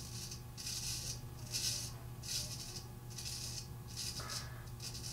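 Straight razor scraping through lathered stubble on the cheek in a series of short across-the-grain strokes, about six of them at an even pace, each a brief raspy scrape.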